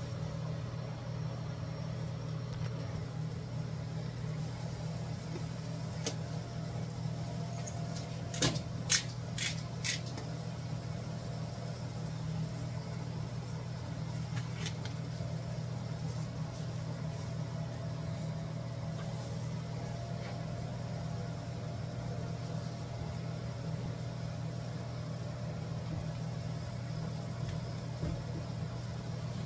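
Steady low hum of a kitchen vent fan, likely the over-the-range microwave's, running above a gas stove. A few sharp clicks and knocks come about eight to ten seconds in, and one more near fifteen seconds.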